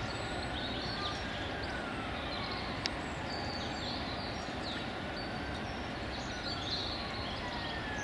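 Urban park ambience: a steady hum of city traffic with small birds chirping on and off, and a distant siren wailing slowly up and down. A single sharp click about three seconds in.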